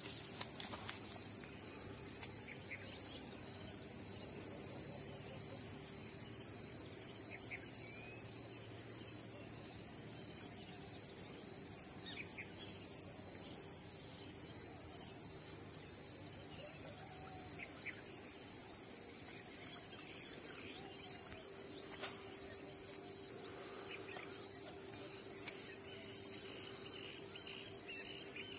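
Crickets chirring in a steady, high-pitched chorus with a rapid pulsing, and a few faint short chirps over it.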